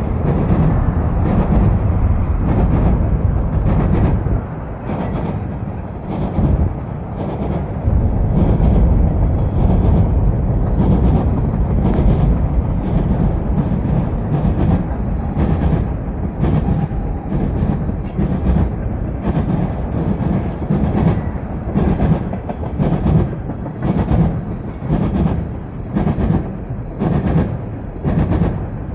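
Freight train cars rolling past, a steady low rumble with the wheels clacking over rail joints about once a second.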